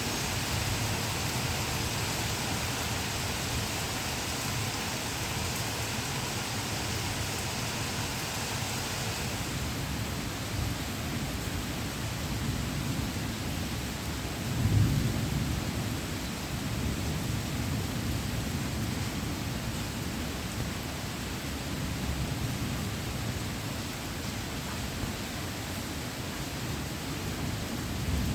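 Heavy rain falling steadily with rolling thunder underneath, a louder rumble of thunder peaking about halfway through. The rain's hiss softens a little about a third of the way in.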